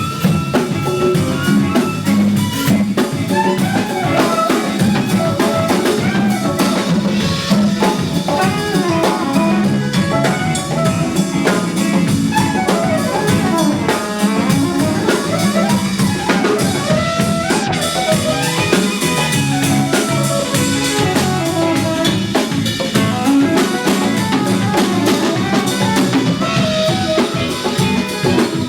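Live band playing an instrumental passage: a drum kit keeps a busy groove under melodic parts from the other instruments.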